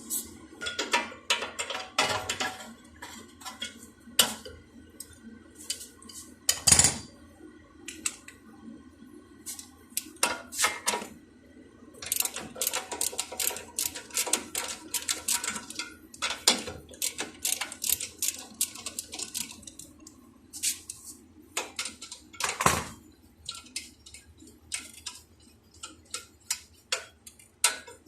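Metal hand tools clinking and clattering against metal parts while working on a car's front shock absorber, with a series of short sharp clicks and two louder knocks, one about a quarter of the way in and one near the end.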